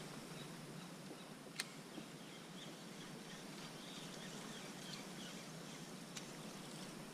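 Quiet open-water ambience with faint, scattered bird calls, and one sharp click about a second and a half in.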